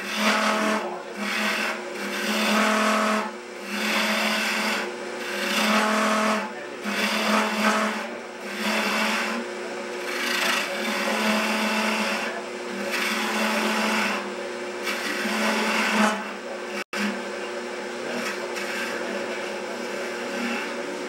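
Wood lathe running with a steady motor hum while a gouge cuts a spinning wooden spindle, turning a taper. The cuts come in repeated passes, each a rising and fading scraping hiss about once a second, easing to a steadier, lighter cut after a brief dropout past the middle.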